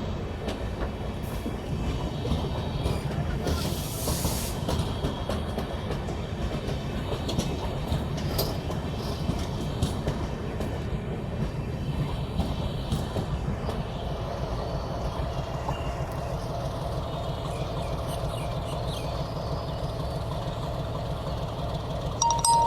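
LHB passenger train coaches rolling on the track, a steady rumble with the rhythmic clatter of wheels. A steady mid-pitched tone joins in about two-thirds through, and a brief loud tone sounds right at the end.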